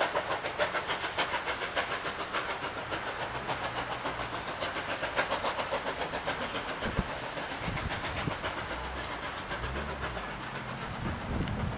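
GWR Large Prairie 2-6-2 tank steam locomotive working away, its exhaust beats about three a second and fading into a steady hiss. A low rumble comes in near the end.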